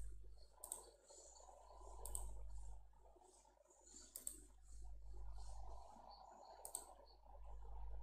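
A few faint, sharp clicks, one to two seconds apart, over a low background hum and hiss.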